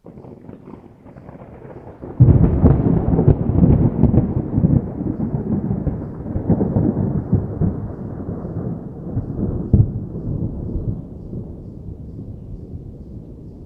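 Distant thunder: a faint rumble, then about two seconds in a sudden loud clap that breaks into a long low rumble with crackles, slowly fading, with one more sharp crack near ten seconds in.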